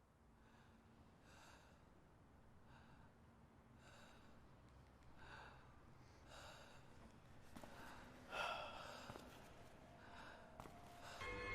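Faint, repeated heavy breathing, one breath about every second, growing gradually louder, with a sharper, louder breath about eight seconds in.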